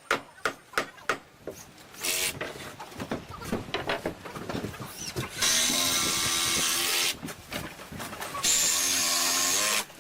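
Handheld power tool running twice, about a second and a half each time, each run starting and stopping abruptly with a steady motor whine over a hiss. A quick series of sharp knocks comes in the first second or so.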